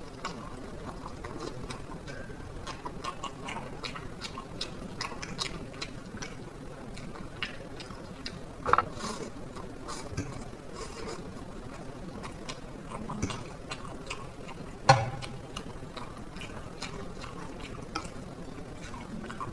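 Close-miked eating of black bean noodles: many small chewing and mouth clicks with light utensil stirring. Two louder sharp sounds come about 9 and 15 seconds in.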